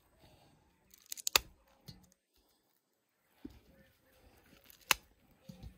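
Fresh milky corn cobs being snapped in half by hand and the pieces set into a cast-iron kazan: a quick cluster of sharp cracks about a second in, a single crack near the end, and a few dull knocks between.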